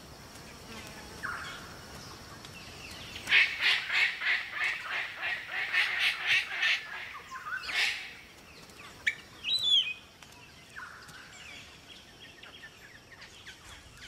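Palm cockatoos calling: a run of about a dozen quick, harsh repeated calls, then a single louder call and a short whistle.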